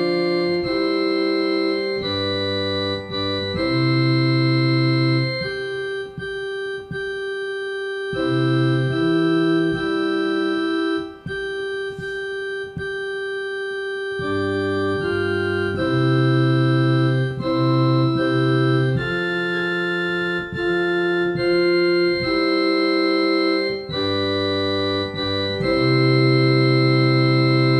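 Organ playing a hymn in slow, held chords that change about once a second, the notes sustaining without fading; the music stops right at the end.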